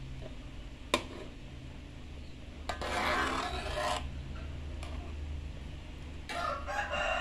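Metal spatula stirring and scraping through fish sambal gravy in an aluminium wok. There is a sharp clink against the pan about a second in, and two longer scrapes, one in the middle and one near the end.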